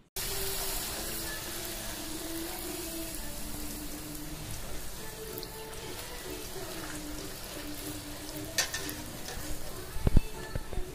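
A thin sheet of dough deep-frying in hot oil in an aluminium kadai: a steady sizzle of bubbling oil. Near the end a metal spatula knocks sharply against the pan a couple of times as the sheet is lifted out.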